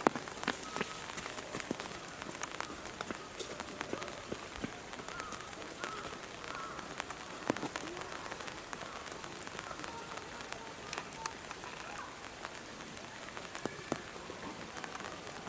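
Steady rain falling on tree leaves, an even hiss dotted with the small ticks of single drops.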